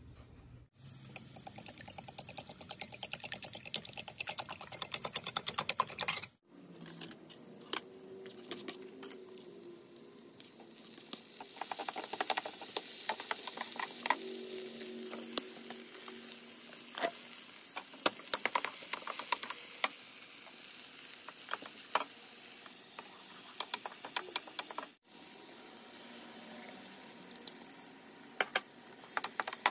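Vegetables sizzling in hot oil in a frying pan, with a wooden spoon stirring and scraping against the pan; a run of quick, regular scraping strokes in the first few seconds.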